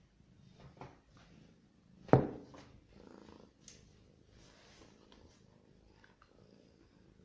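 A domestic cat purring while it is stroked, a low, even rumble. A single sharp knock about two seconds in is the loudest sound.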